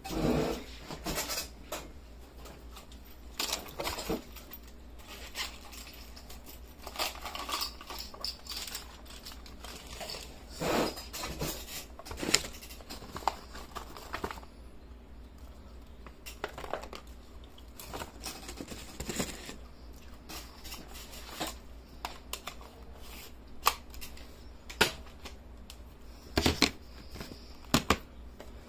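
Irregular rustling, taps and sharp clicks of paper and small objects being handled, over a faint steady low hum.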